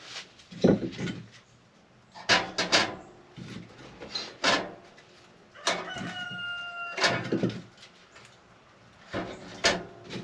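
Scattered knocks and clunks of wood and metal as firewood is loaded into a small steel Winnerwell wood stove. Near the middle, a pitched sound is held for about a second.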